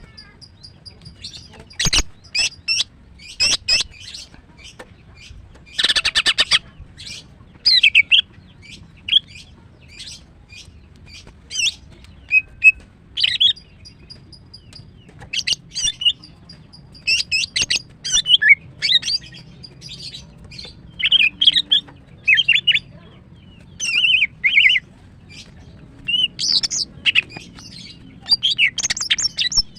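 Female greater green leafbird (cucak ijo) calling in breeding condition: quick, irregular runs of short, sharp chirps and whistles, with a harsh, rasping call about six seconds in.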